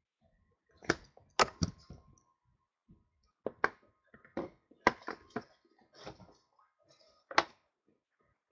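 Sharp taps and knocks as a foil-covered trading-card box is handled and set against its wooden outer box, about seven strikes at uneven intervals, with faint plastic-wrapper rustling between them.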